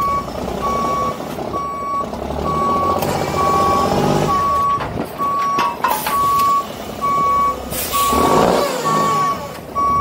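A truck's reversing alarm beeps steadily about once a second over a diesel engine that revs up for a couple of seconds, with a short burst of air hiss, like an air brake, about eight seconds in.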